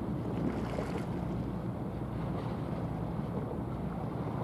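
Steady low rumbling noise of wind buffeting the microphone.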